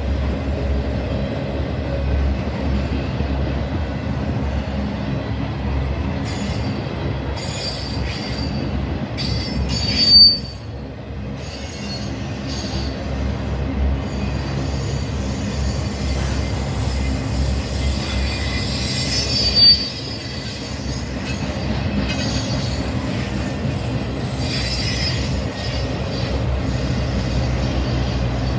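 Intermodal freight train of flatcars carrying highway trailers rolling past, a steady rumble and rattle of wheels on rail. A brief high squeal rises out of it twice, about a third and two-thirds of the way through.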